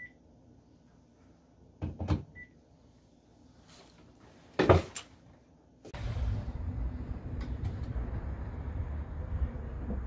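A pair of knocks and then a louder single thump in a quiet room. From about six seconds in, a steady low rumbling noise takes over.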